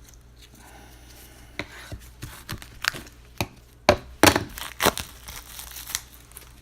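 A run of sharp plastic clicks and taps, thickest about four to five seconds in, from a trading card being fitted into a magnetic one-touch card holder and the hard plastic case handled.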